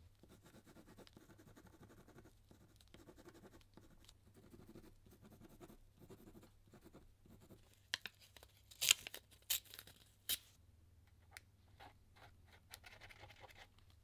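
Purple paper torn by hand: a few sharp rips in quick succession about eight seconds in, the loudest part. Before and after them, quieter rustling as the paper is handled.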